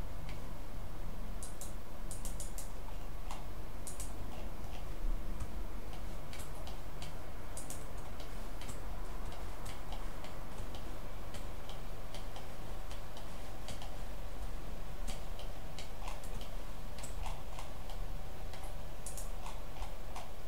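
Computer mouse clicking irregularly, dozens of short clicks, some in quick runs, over a steady low hum.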